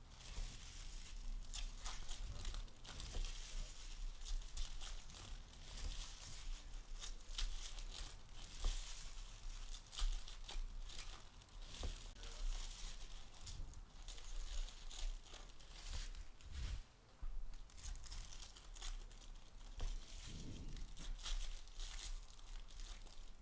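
Baseball card packs being torn open by hand, the pack wrappers tearing and crinkling in irregular crackly bursts while the cards are handled.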